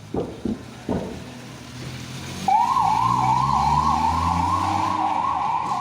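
Emergency vehicle siren in a fast yelp, its pitch rising and falling about three to four times a second, starting about two and a half seconds in over the low hum of the vehicle's engine.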